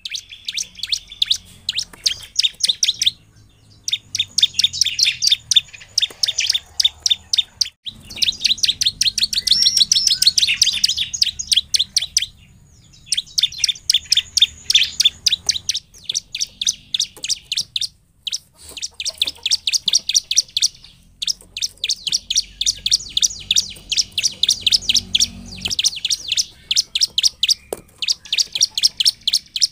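A bar-winged prinia (ciblek) singing its fast chattering song: long runs of sharp, high, quickly repeated notes, about six or seven a second, broken by several short pauses.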